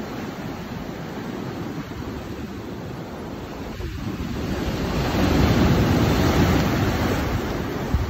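Ocean surf washing against a rock jetty, a steady rush of water that swells louder about halfway through as a bigger wave comes in, then eases a little near the end.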